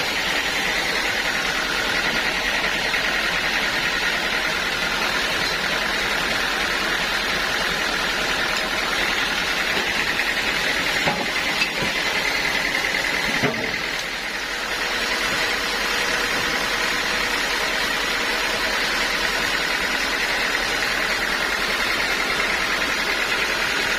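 Sawmill saw running steadily with a high, even whine. A few short knocks come about halfway through, followed by a brief drop in level.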